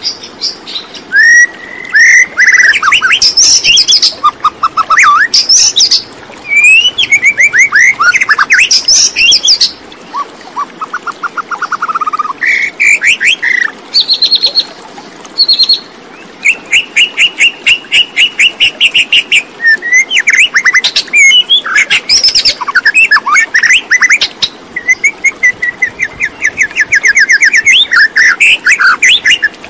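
Birds chirping and singing close by, with rapid trills of quickly repeated notes and several calls overlapping almost without a break.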